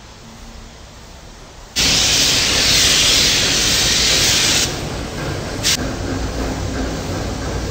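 Compressed-air paint spray gun spraying: a loud steady hiss that starts suddenly about two seconds in and lasts about three seconds, then a short second burst, with a lower steady rush continuing after.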